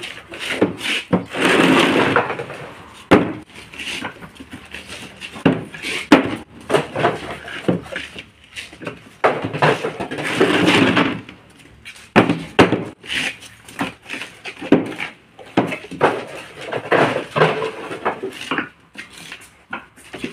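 Plastic paver moulds repeatedly knocked against a board to release freshly cast interlocking cement pavers: a steady run of sharp knocks and clatter, with a few longer, noisier stretches in between.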